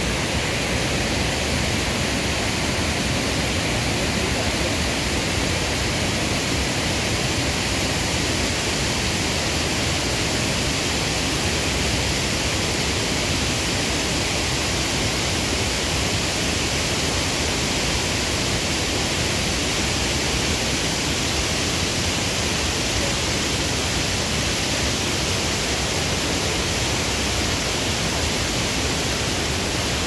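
Steady rush of white water pouring over rocky rapids at a waterfall, an even, unbroken noise.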